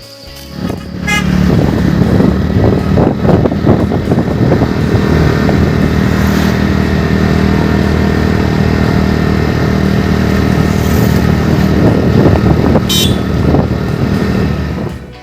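A motor vehicle engine running steadily, starting about a second in and cutting off just before the end.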